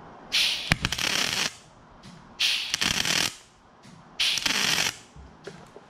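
MIG welding on aluminum: three short bursts of arc crackle and hiss, each about a second or less, with short pauses between. The aluminum wire is being laid on in globs, with the heat and wire speed turned down.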